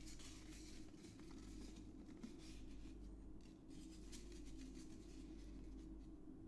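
Faint scratching and rustling of a folded paper scoop working in a glass jar of LB broth powder, in short, irregular strokes.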